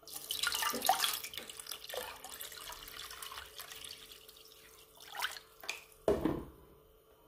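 A stream of water pouring into a metal pot and splashing over the lid of a tin can standing in it. The pour starts suddenly, is loudest in the first second, and thins and dies away over about five seconds. A few short splashes follow, the loudest a low thump about six seconds in.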